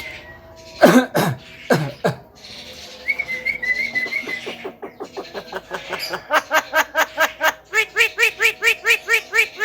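Javan myna calling: a few loud falling calls about a second in, a short warbled whistle a little later, then a fast run of repeated notes, about four or five a second, through the second half.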